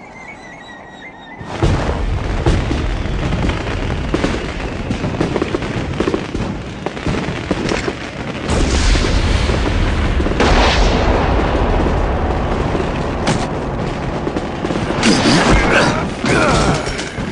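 Action-film soundtrack: booms and gunfire over music, starting suddenly about a second and a half in and staying loud, with sharp blasts scattered through it.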